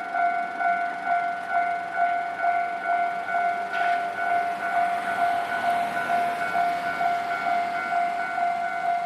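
Japanese level-crossing warning bell ringing in a steady repeating pattern, about two to three strikes a second. A train's running noise swells underneath it in the middle.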